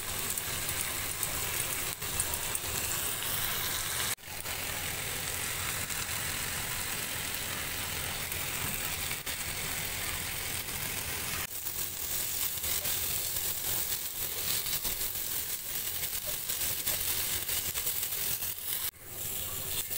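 Marinated chicken pieces sizzling as they fry in a little oil on a flat iron tawa: a steady crackling hiss that drops out briefly twice.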